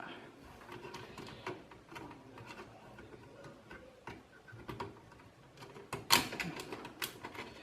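Light scattered clicks and ticks of a motherboard and screws being handled and lined up against the metal standoffs inside a PC case, with a couple of sharper clicks about six seconds in.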